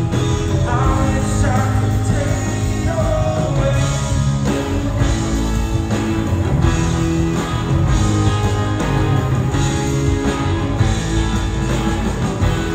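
A live rock band playing through a concert hall's sound system, with electric guitars, keyboards and drums, recorded from the audience.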